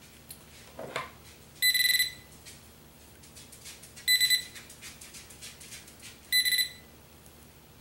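Garrett Pro-Pointer pinpointer metal detector sounding three short, high-pitched buzzing beeps about two seconds apart. Its speaker has just been repaired and it is working again.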